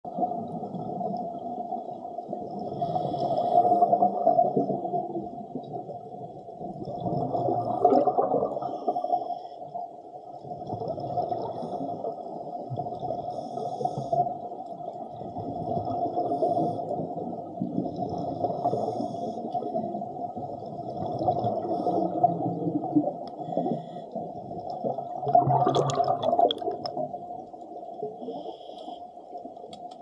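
Underwater sound of scuba divers breathing through their regulators, the exhaled bubbles rumbling in swells every three to four seconds over a steady hum.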